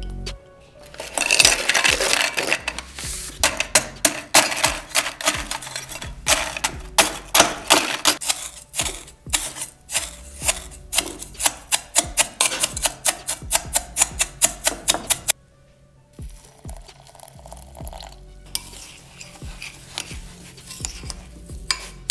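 A spoon clinking and scraping against a glass bowl as it stirs dry crushed biscuit crumbs, over background music. The clinks come thick and fast, several a second, for about the first fifteen seconds, then turn faint and sparse.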